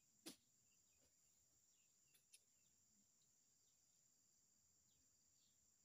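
Faint, steady high-pitched insect drone, with one sharp knock just after the start and two light clicks a little after two seconds in.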